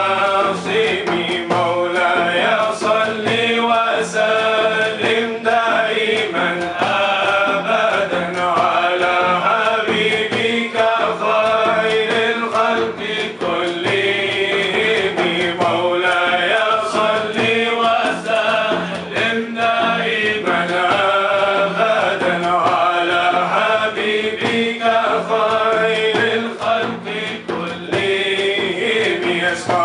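Men singing an unaccompanied devotional chant (inshad), a lead voice carrying a melismatic melody over a steady low held note.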